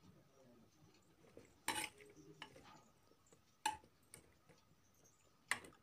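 A perforated steel skimmer stirs carrot pieces in milk in an aluminium pressure cooker, with about four sharp metal clinks against the pot among faint scraping.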